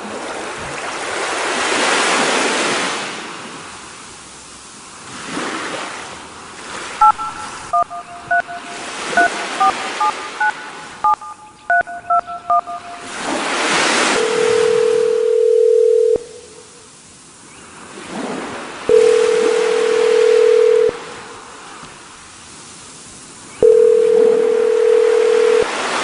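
Intro sound collage of a telephone call: swelling and fading hiss like surf, then a keypad dialing a number in quick two-tone beeps, then three long steady ringing tones on the line, each about two seconds.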